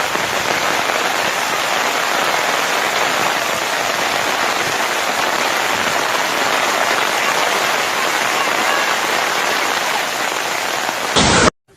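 Dense, steady rush of water, rain and flash-flood water, with a brief louder surge about eleven seconds in before it cuts off suddenly.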